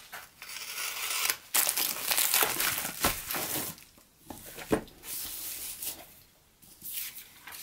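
Plastic poly mailer bag being torn open and crinkled by hand, in irregular bursts of rustling and crackling.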